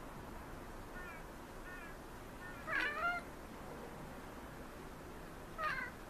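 Maine Coon cat giving short chirping meows at birds overhead: two faint chirps about a second in, a louder call about three seconds in, and another just before the end.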